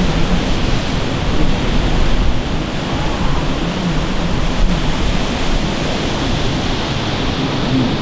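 Wind buffeting the microphone over the distant drone of a stand-up jet ski engine, its pitch wavering up and down as the craft is ridden through a turn.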